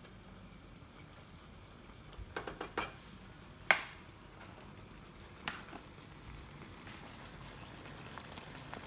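Stir-fry sauce simmering quietly in a wok on a gas burner as the stock thickens with the cornflour, with a wooden spatula clacking against the wok a few times, the loudest knock about four seconds in.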